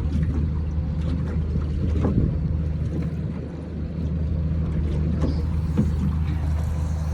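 Boat's outboard motor running steadily at low revs, with a few light knocks over it.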